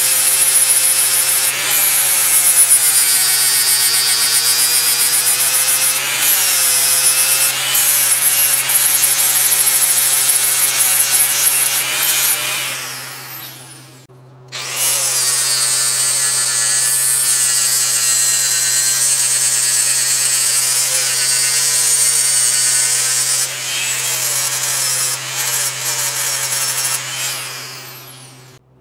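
Angle grinder grinding a weld smooth on a steel part. Its high whine dips in pitch each time the disc is pressed into the metal and recovers as it eases off. The grinder winds down about halfway through, runs again, and winds down near the end.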